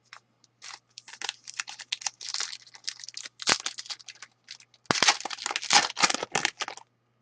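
Trading card pack wrapper crinkling and tearing as it is opened, with the cards handled, in a run of irregular rustles that is loudest about two-thirds of the way through.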